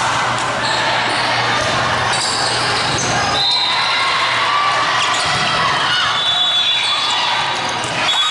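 Volleyball rally in a large gym: thuds of the ball being played and players' footfalls on the sport-court floor, against a steady background of players' and spectators' voices echoing in the hall.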